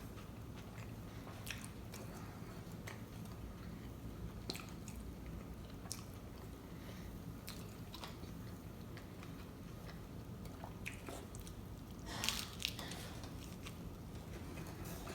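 A person chewing and biting into a taco close to the microphone, with scattered small crunches and wet mouth clicks over a low steady hum. A louder, brief crunchy burst comes about twelve seconds in.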